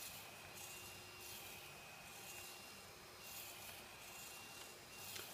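Faint rubbing and handling noise, swelling softly every half second or so, as a DJI Phantom 2 Vision quadcopter is rocked by hand so its camera gimbal tilts. The replacement Hitec HS-5055MG tilt servo makes no high-pitched whine. A faint steady high tone sits underneath.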